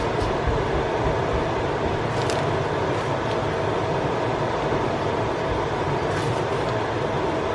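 Steady whirring hum of a kitchen fan, running evenly.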